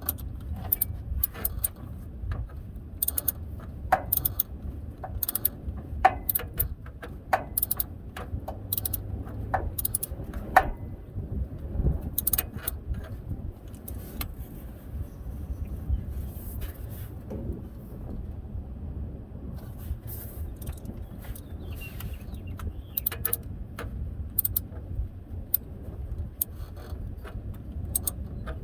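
Metal hand tools clicking and clinking against the engine's metal parts in irregular short strokes, over a steady low rumble.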